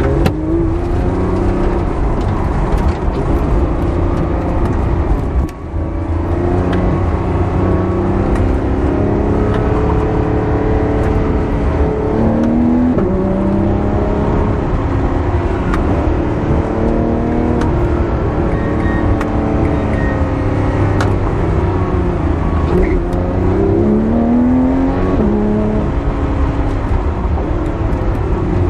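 Porsche 911 GT3's naturally aspirated flat-six engine, heard from inside the cabin, revving up and falling back again and again under alternating hard acceleration and braking. The sound dips briefly about five and a half seconds in.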